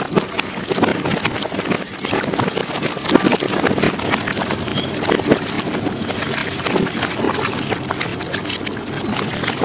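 Sea and wind rushing past a fishing boat under way, with irregular knocks and thumps on the deck.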